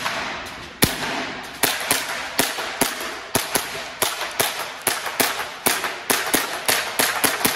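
ASG CZ P-09 green-gas blowback airsoft pistol firing a rapid string of shots, about three a second, each crack echoing in the range hall. The pistol has been overfilled with green gas, so each shot is a loud gas blast.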